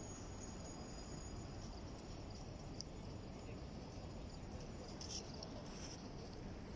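Steady low outdoor rumble on a phone microphone at night, with a faint, thin, high continuous tone over most of it that fades about five seconds in, and a couple of light clicks near the end.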